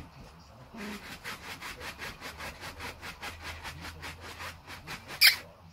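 A puppy's claws scratching rapidly at the taut mesh fabric of a reclining lounge chair, as if digging, in an even rhythm of about six strokes a second. Near the end comes one brief, sharp high-pitched sound, the loudest moment.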